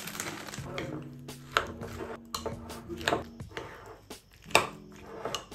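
A metal utensil stirring thick vegetable-fritter batter in a ceramic bowl: wet squishing and scraping, with several sharp clinks against the bowl's side. Soft background music with held notes plays underneath.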